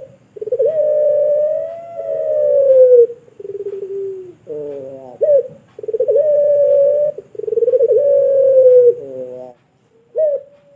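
Puter pelung dove (a long-voiced Indonesian variety of the barbary dove) cooing in long drawn-out phrases, each one to three seconds, some starting or ending with a wavering, stuttering note. There is a short pause with one brief note near the end.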